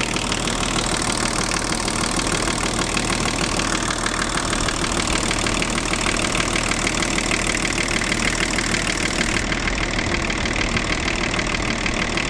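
BMW 325tds's 2.5-litre straight-six turbodiesel idling steadily, with a dull clacking in the background that the owner reports as an abnormal noise of unknown cause.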